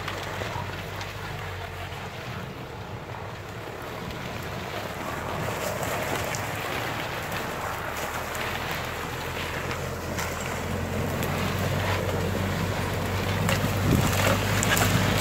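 Toyota Hilux Surf's engine running as the 4x4 drives slowly up through snowy brush, growing louder as it approaches, with wind on the microphone. A few sharp cracks come near the end.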